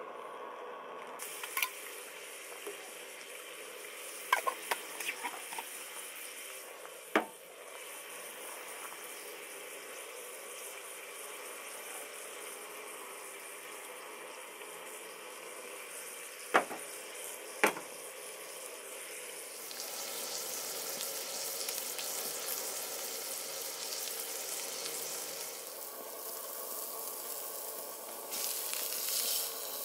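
Black pepper pork sausage patties sizzling as they fry, with a few sharp taps along the way; the sizzle gets louder about twenty seconds in.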